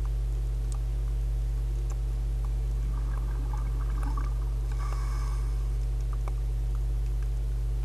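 Underwater sound through a camera housing: a steady low rumble with scattered faint clicks, and gurgling bursts of a diver's exhaled bubbles about three and about five seconds in.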